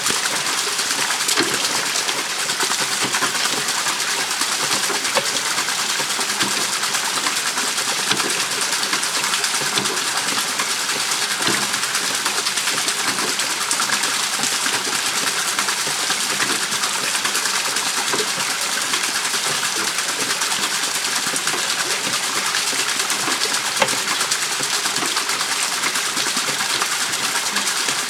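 Water pouring from a bamboo trough onto a homemade water wheel, a steady rushing splash, with one sharp click late on.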